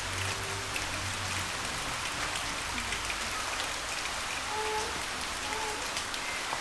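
Steady hiss and patter of rain with scattered drop-like ticks, made as a live sound effect for a rainy film scene; it cuts off suddenly at the end.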